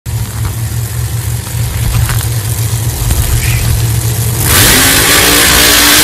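Pro Mod drag cars' engines idling with a deep, steady rumble. About four and a half seconds in, one revs hard and stays loud, its pitch climbing as the burnout gets under way.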